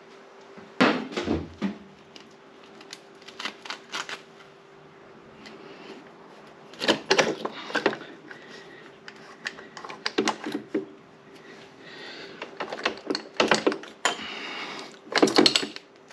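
Sharp metal knocks and clicks, several in quick clusters, as a KTM 200 two-stroke's cylinder barrel is worked loose and lifted off the crankcase studs.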